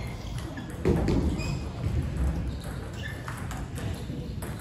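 Scattered sharp clicks of table tennis balls striking bats and tables, heard in a large echoing hall, with a duller thud about a second in.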